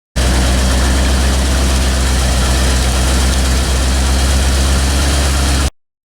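1985 Corvette's L98 350 (5.7 L) tuned-port-injection V8 idling steadily; the engine has a blown driver's-side head gasket. The sound cuts in suddenly and stops just as suddenly a little before the end.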